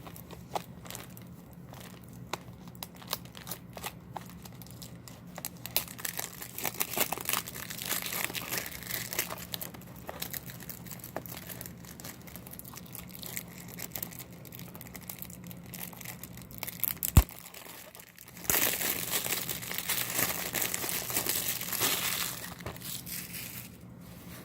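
Plastic wrapping being crinkled, torn and peeled off a Blu-ray case, with scattered crackles. A single sharp click comes about seventeen seconds in, and a louder stretch of crumpling follows near the end.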